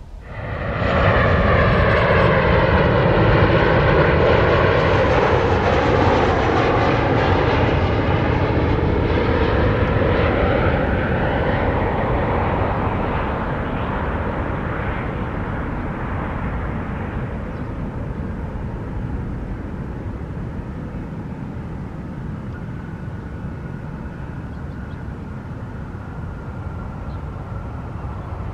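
Boeing 737 jet airliner passing low overhead on final approach: a sudden rise to a loud jet engine noise whose tones swoop down and back up as it goes by, then slowly fading as it goes on to land.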